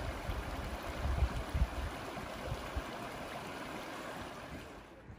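Rushing water of a mountain stream, a steady hiss, with wind buffeting the microphone in low gusts, strongest about a second in.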